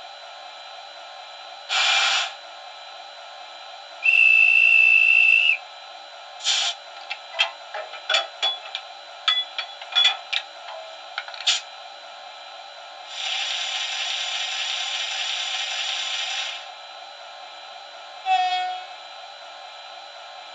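Sound effects from the digital sound decoder of a model Taurus electric locomotive, played through its small speaker over a steady running hum: a short hiss, a high whistle held for about a second and a half, a quick run of sharp clicks and clanks, a long even hiss of air lasting about three seconds, and a short pitched toot near the end.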